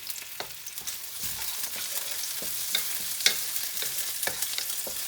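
Stir-fry sizzling in hot oil in a pan, with a utensil clicking and scraping against the pan every second or so as it is stirred.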